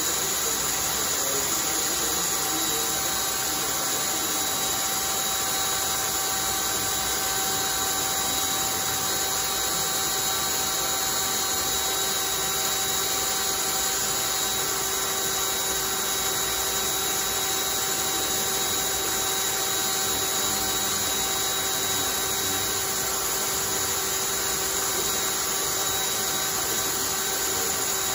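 Cordless drill running continuously at one constant speed, spinning a homemade centrifuge rotor of wooden discs on a threaded rod: a steady motor whine with several unchanging tones over an even hiss.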